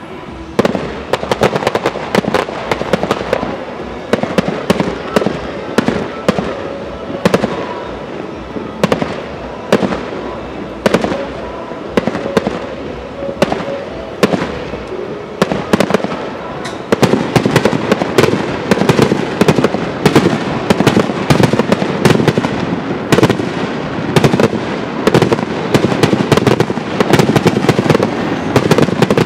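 Aerial firework shells bursting in rapid succession, sharp bangs overlapping into a continuous rumble. The barrage grows louder and denser a little past halfway.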